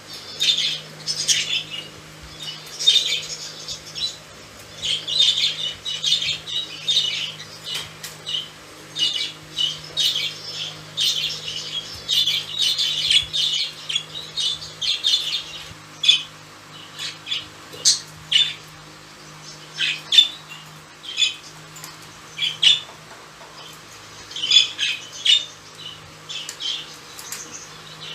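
Budgerigars chattering, with a stream of short, high chirps and squawks in irregular bursts. A faint steady low hum runs underneath.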